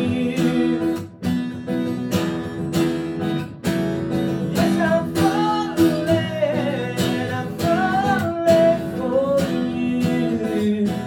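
Male singer singing to his own steadily strummed acoustic guitar in a live solo performance.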